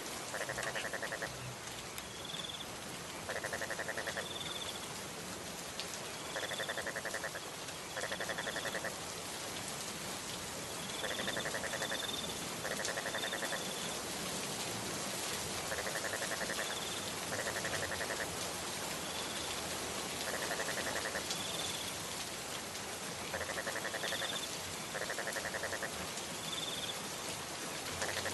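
Steady rain falling, with frogs calling over it: pairs of pulsed, rattling croaks about a second long repeating every three or four seconds, and short high chirps in between.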